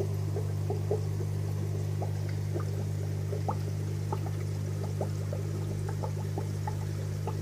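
Aquarium sponge filter bubbling: many small, irregular bubble pops and gurgles over a steady low hum.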